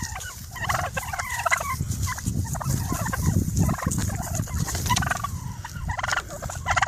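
Turkeys gobbling over and over, one rattling gobble after another.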